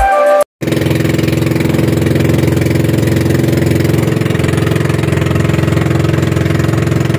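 Engine of a pakura, a small motorized fishing boat, running steadily under way at sea, an even, unchanging drone.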